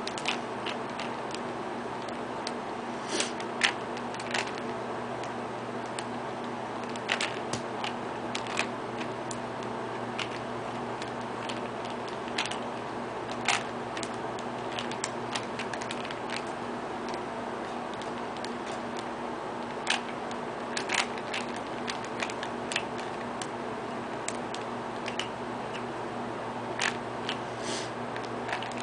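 Plastic Rubik's Cube being solved by hand: its layers twisting with irregular clicks and clacks, over a steady low hum.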